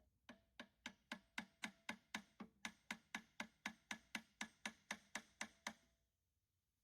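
A stuck pulley on an electric motor shaft being tapped lightly and evenly, about four taps a second for some five seconds, each tap with a faint metallic ring, to loosen it from the shaft.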